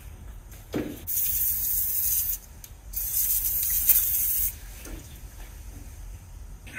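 Aerosol can of Cre-Oil penetrating oil spraying in two hissing bursts of about a second and a half each, soaking the lifters of a seized engine.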